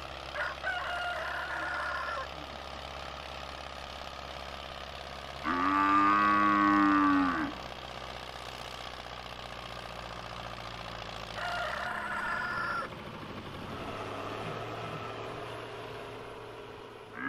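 Cows mooing: three separate moos, the loudest and longest about six seconds in, and a shorter one near twelve seconds.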